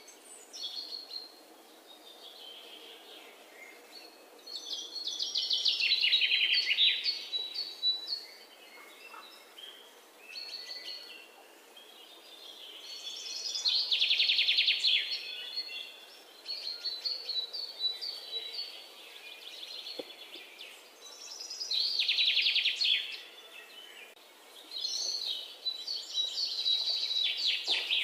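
A bird singing in four bursts of fast, high trills, each two to three seconds long, with quieter chirps between them.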